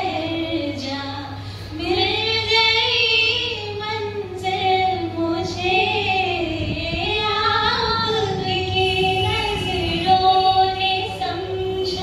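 A woman singing into a handheld microphone, holding long notes that glide up and down in an informal jam.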